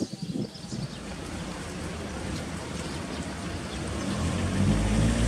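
A motor vehicle approaching, its engine noise growing gradually louder, with a low steady hum taking over near the end.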